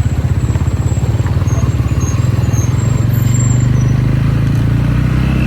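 Motorcycle engine running steadily with a fast, even pulse; its note grows a little fuller after about three seconds.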